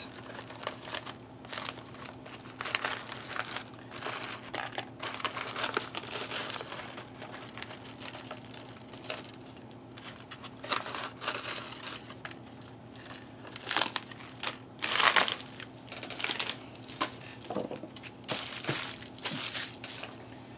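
Foil ration packet crinkling and rustling in the hands as it is handled and emptied of crackers, with louder crackles about two-thirds of the way through. A faint steady low hum sits underneath.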